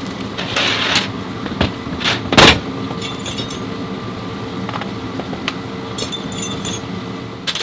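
A steady mechanical hum, with scattered metallic clinks and jingling and one loud knock about two and a half seconds in.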